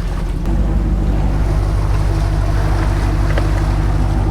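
Boat motor running steadily, getting louder about half a second in and then holding, with wind and water noise.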